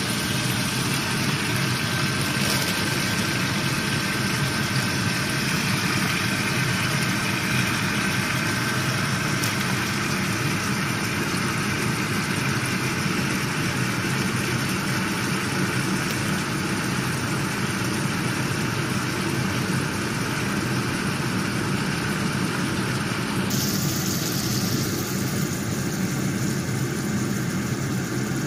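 Shrimp, garlic and chilli sizzling in oil in a frying pan, with a steady low hum underneath. The sizzle's hiss shifts near the end.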